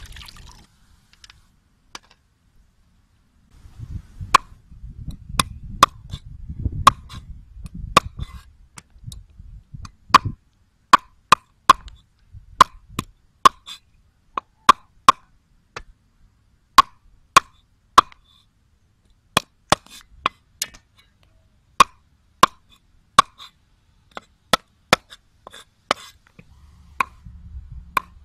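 A knife chopping raw chicken feet on a round wooden cutting board, the blade striking through into the wood. The chops come sharp and irregular, about one or two a second, starting about four seconds in.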